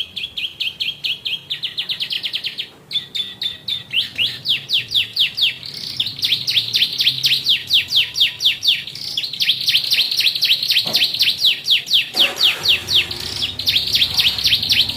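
Yellow canary singing a long unbroken song of rapid short chirps, mostly quick downward sweeps, several a second, in the manner of the ciblek (bar-winged prinia) song it imitates. The song breaks off briefly about three seconds in.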